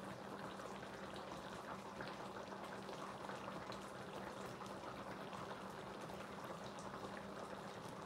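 Cheesy pasta sauce simmering in a skillet on the stove: faint, steady bubbling with small pops, over a steady low hum.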